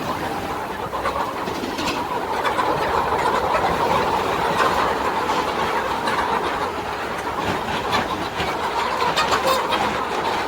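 A large flock of agitated chickens, a steady dense din of many calls at once, with scattered sharp clicks and scratches.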